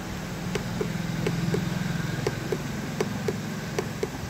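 A motor running with a steady low hum, with light regular clicks about four times a second.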